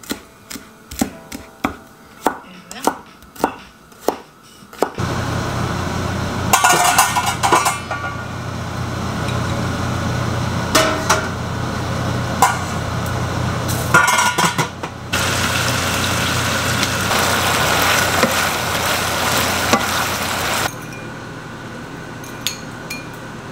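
A chef's knife chopping green onions on a wooden cutting board, about seven even strokes, then a steady hiss with a low hum from the gas stove, with clinks of pots and utensils now and then; the hiss is louder for several seconds before dropping away, and near the end a spoon clinks lightly against a bowl.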